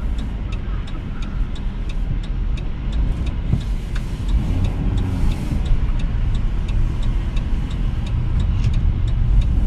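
Steady low rumble of a car's engine and tyres on a wet road, heard inside the cabin, with a regular light ticking of a few clicks a second from the turn signal.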